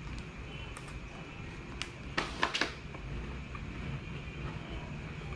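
Crackles from eating packaged crackers and chips, in a short cluster about two seconds in, over a steady low background rumble.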